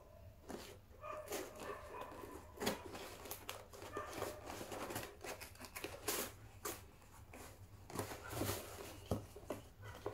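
Plastic and cardboard packaging being handled and opened, with irregular crinkling, rustling and sharp clicks.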